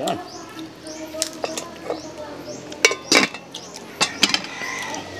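A metal serving spoon clinking and scraping against a plate as food is scooped out. It gives a scatter of sharp clinks, the loudest a little after three seconds in.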